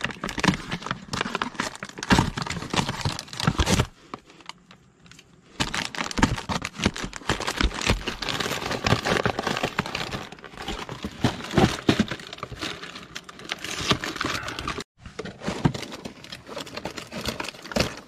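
A stiff cardboard ice cream box being torn open by hand: ripping and crackling card, with the plastic wrappers of the bars inside crinkling. It goes quiet for a moment about four seconds in, then the tearing and rustling resume.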